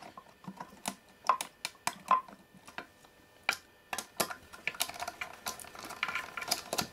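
Scattered light metallic clicks and taps, irregularly spaced, from an Allen key and small screws being worked while the Allen screws holding a circuit board are undone.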